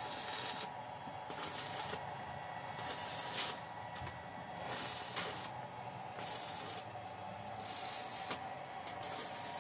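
Electric arc welding of steel wire mesh to a steel frame: a run of short tack welds. Each is a crackling hiss lasting under a second, about seven of them with brief pauses between.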